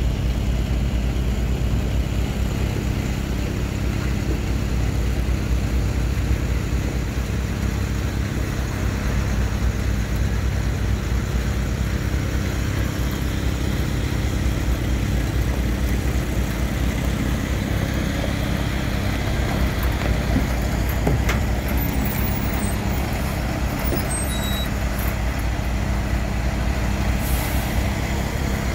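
Airport crash fire truck's diesel engine running as the heavy 6x6 rolls past at close range: a steady low engine drone.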